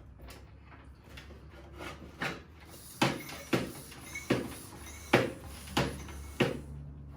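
Manual pump being worked in repeated strokes, about one every two-thirds of a second, the strokes growing sharper and regular partway through. It is pumping air through a hose and Schrader valve into a boiler's expansion vessel to recharge it to a 1 bar pre-charge. A steady low hum runs underneath.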